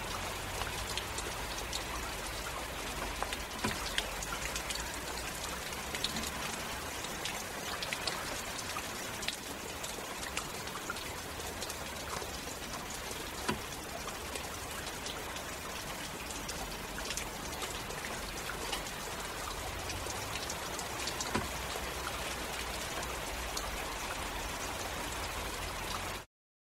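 Heavy rain falling steadily, with many separate drops striking close by as sharp ticks over the downpour. It cuts off suddenly near the end.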